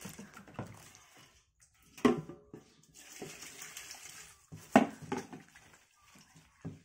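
Water poured from a plastic scoop into an aluminium pot of salted mustard greens to cover them for pickling: a splashing pour lasting about a second and a half. Hard knocks of the scoop and pot come about two seconds in and again near the end, the last one the loudest.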